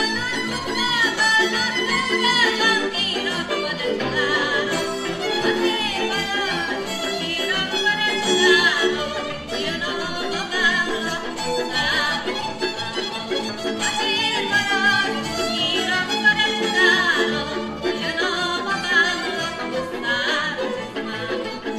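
Hungarian folk string band playing: a fiddle carrying the melody over a steady, rhythmic accompaniment with a bass line.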